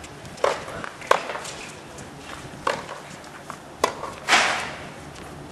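Tennis ball in a rally on a hard court: sharp racket hits and ball bounces, roughly a second apart. Near the end comes a longer noisy burst that fades over about half a second.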